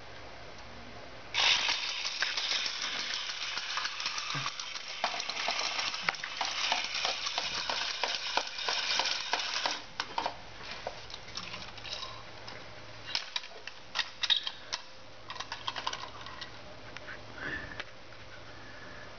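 Plastic toy horse clicking and clattering on a tiled floor: a dense rattle starts suddenly about a second and a half in and runs for about eight seconds, then gives way to scattered separate clicks.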